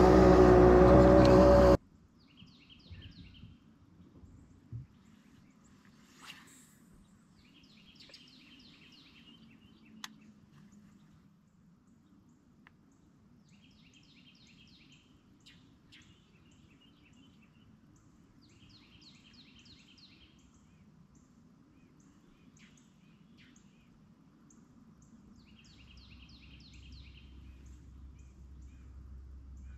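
Quiet lake ambience with a low steady hiss, over which a songbird repeats a short trilled phrase about every five to six seconds. There are a couple of faint knocks, and a low rumble swells near the end. It opens with a second or two of louder sound that cuts off abruptly.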